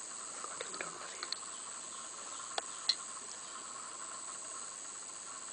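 Steady chorus of forest insects, a continuous high buzz over a lower band. A few faint clicks come in the first second or so, and two sharp ticks about three seconds in.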